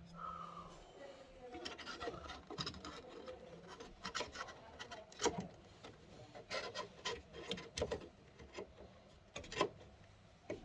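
Close-up handling noise of a phone being moved and set down: rubbing and scraping on the microphone with scattered light clicks and knocks.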